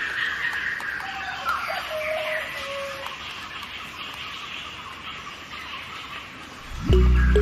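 Birds calling, with a few short pitched calls over a steady chorus. Music comes back in loudly near the end.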